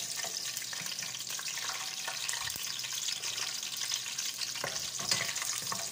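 Whole spices and onion sizzling in hot oil in a pot, with a wooden spatula stirring through them. A brief knock about five seconds in.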